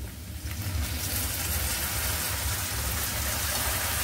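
Vegetables frying in hot oil in a steel wok, sizzling more strongly as soy sauce is poured in: the sizzle rises over about the first second and then holds steady.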